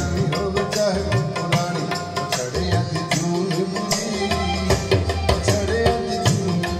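Recorded music with a drum rhythm and melody, its low drum strokes bending in pitch, played over floor-standing loudspeakers driven by a Luxman M-02 power amplifier and C-02 preamplifier, heard in the room.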